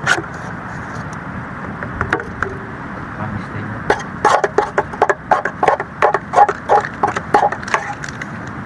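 Steady hiss of heavy rain, with a run of quick light knocks or clinks in the second half, about two or three a second.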